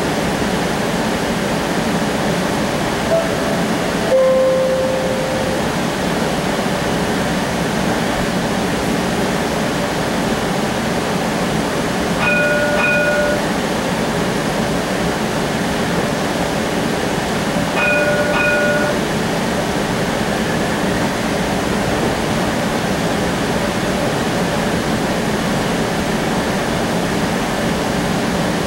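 Streetcar cabin noise: the car's steady rumble and hum. A short falling two-note tone sounds about four seconds in, and two brief chime tones come about six seconds apart near the middle.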